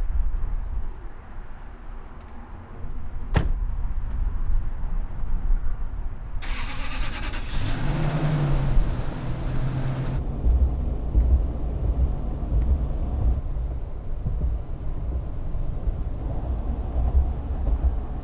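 A door shuts with a single sharp thud, then a few seconds later the Toyota Tundra pickup's engine is started and settles to running. Steady low vehicle rumble fills the rest.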